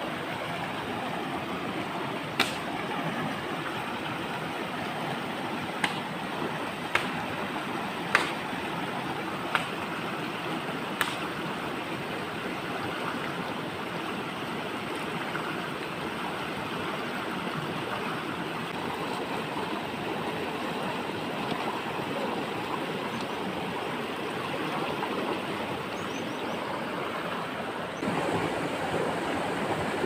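River rushing steadily over rocks, with several sharp clicks in the first eleven seconds. The rush gets louder about two seconds before the end.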